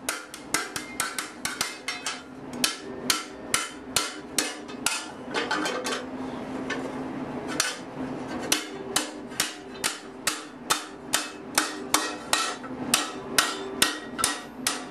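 Round-faced hammer striking 14-gauge sheet steel cold over a chain link held in a vise, sinking the disc into a shallow dish. The blows come in a steady run of about three a second, with a brief pause about halfway through, and the metal rings under them.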